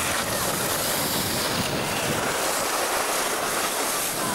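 Steady rushing wind noise buffeting the camcorder's microphone.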